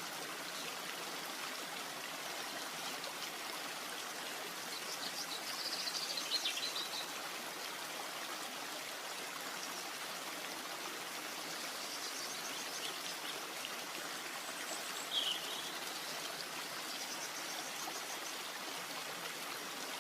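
Steady rushing water noise of a forest soundscape, with small birds calling over it several times: a falling whistled call about six seconds in, a short call about fifteen seconds in, and trills between.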